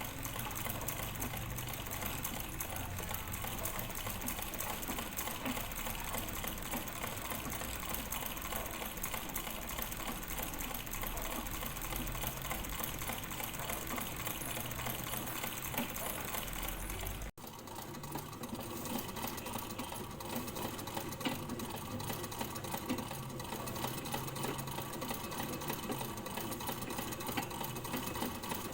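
Sewing machine running continuously, stitching with a fast, even rattle of the needle mechanism. It cuts out for an instant about two-thirds of the way through, then carries on.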